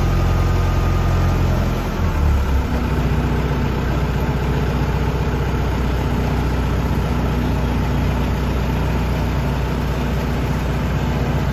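Diesel engine of a SkyTrack telehandler running steadily while its boom is raised; its note shifts about two seconds in and then holds steady.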